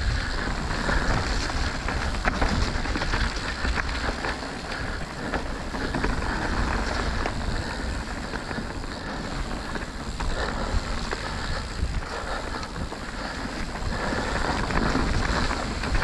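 Mountain bike descending a wet dirt trail at speed: wind rushing over the camera microphone with the rumble of tyres rolling over dirt, and scattered sharp clicks and knocks from the bike over bumps.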